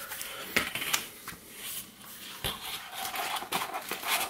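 Paper and cardboard handled by hand: a card and the white cardboard insert of a tablet box being slid and moved, with rustling, scraping and several light taps.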